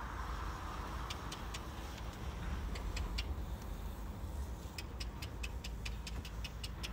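Steady low rumble of wind on the microphone, with short, sharp high clicks: a few scattered early, then a quick run of about five a second near the end.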